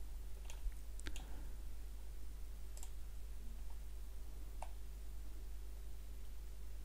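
A few faint computer mouse clicks, four short ticks spread over several seconds, over a steady low hum.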